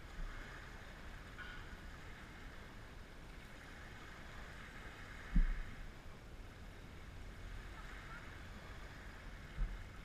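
Outdoor shoreline ambience: a steady wash of small waves on a pebble beach with wind rumbling on the microphone. A low thump about five and a half seconds in and a smaller one near the end.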